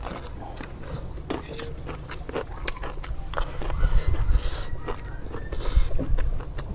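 Metal spoons clicking and scraping against metal trays of fried rice in quick, irregular strokes, with chewing close to the microphone. A couple of louder noisy rushes come around the middle and near the end.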